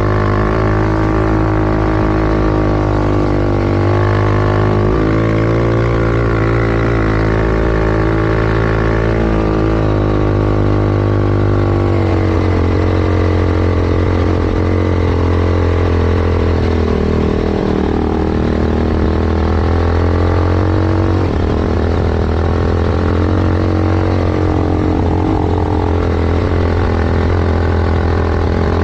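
Yamaha YFZ450 quad's single-cylinder four-stroke engine, bored out to 501cc and fitted with a sport exhaust, running hard in soft sand, its pitch rising and falling as the throttle is worked.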